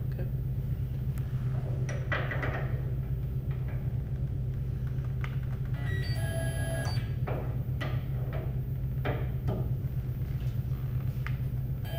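Steady low machine hum with a few short metallic clicks and knocks as a grooving tool holder is handled and fitted onto the lathe's quick-change tool post. A brief ringing tone sounds about six seconds in.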